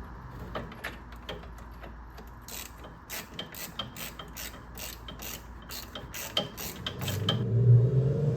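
Hand ratchet clicking in steady strokes, about two clicks a second, as a brake caliper is bolted on. Near the end the clicking stops and a louder low droning hum starts.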